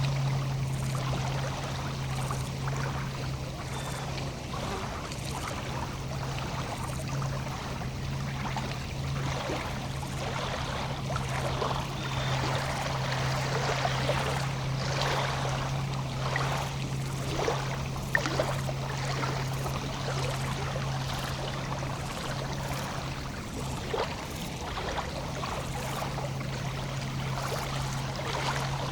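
Small lake waves lapping and trickling at the water's edge in many quick, irregular splashes, over a steady low hum.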